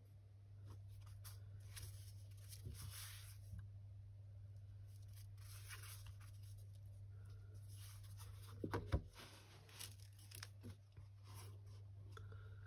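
Paper and card rustling and light handling noises as a handmade photo book is picked up, turned in the hands and its cover opened, with a louder knock about two-thirds of the way through. A steady low hum runs underneath.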